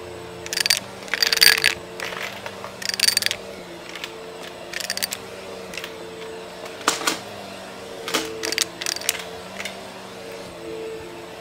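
Bagless upright vacuum cleaner running with a steady hum while coins are sucked up, clinking and rattling in short bursts through the nozzle into the dust bin. There are about eight bursts, the loudest about a second in.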